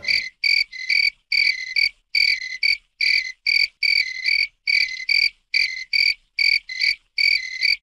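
Frog-like croaking calls repeating in an even rhythm, about two and a half a second, each short and high-pitched.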